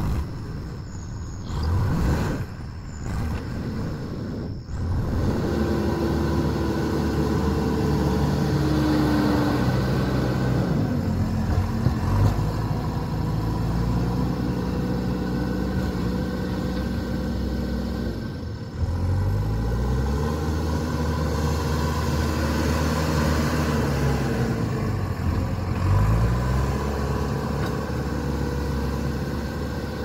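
JCB 4CX backhoe loader's diesel engine running under load, its pitch rising and falling several times as it is revved up and eased back while the machine works.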